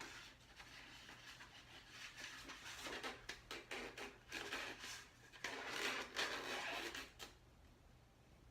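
Rustling and rubbing handling noises in a string of bursts, from hands working through freshly crimped hair; they stop about a second before the end.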